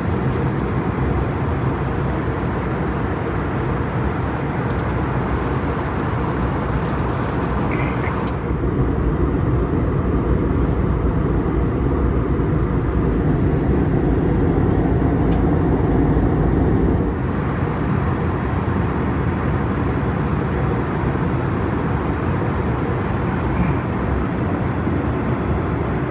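Steady cabin noise of an Airbus A321neo in cruise, heard inside the cabin: a continuous rush of airflow over the fuselage with the hum of its CFM LEAP-1A turbofans. In the middle, for about nine seconds, it turns deeper and more muffled, then returns to its earlier tone.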